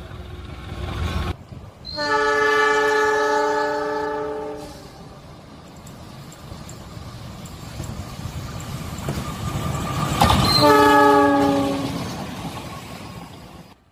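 Horn of a CC206 diesel-electric locomotive sounding twice: a long blast of about three seconds, then a shorter one of about a second and a half, about ten seconds in. The noise of the passing train runs between the blasts.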